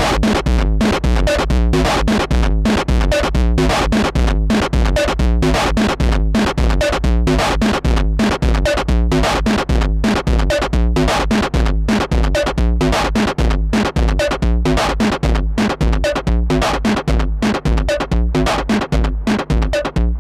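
Roland TR-6S drum machine beat loop played through analogue distortion and overdrive, a fast, steady, heavily distorted electronic drum pattern with a strong bass.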